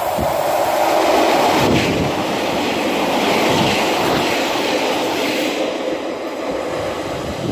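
A short diesel multiple-unit passenger train passes close by at speed, with a steady rush of engine and wheel-on-rail noise. It is loudest about a second in and eases a little after the last carriage goes by.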